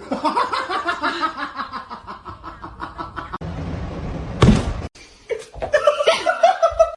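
A person laughing in quick repeated bursts, broken by a sharp thump about four and a half seconds in.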